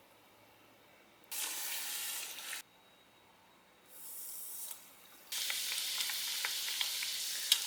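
Dough sticks deep-frying in hot oil: two short stretches of sizzling that start and stop abruptly, then steady sizzling with light crackles from about five seconds in.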